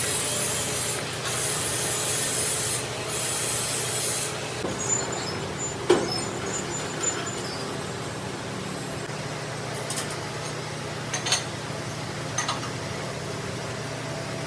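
Three strokes of abrasive rubbing on metal, like a file or emery cloth working a part, over a workshop machine's steady hum. After them come a few sharp metal clicks and knocks.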